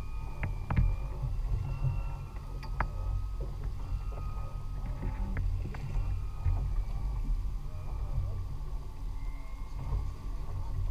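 Steady low rumble aboard a small outboard-powered fishing boat at sea, with scattered sharp clicks and knocks from gear on deck and a faint wavering high whine.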